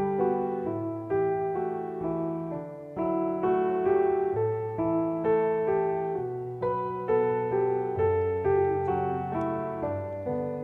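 Background piano music: a slow, gentle melody of single notes and chords, each struck and left to fade, about one to two a second.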